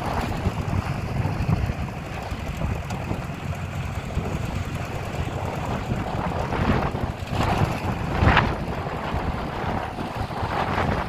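Ford 600 tractor's four-cylinder engine running as it drives slowly around, heard from a distance under heavy wind buffeting on the microphone, with a few stronger gusts past the middle.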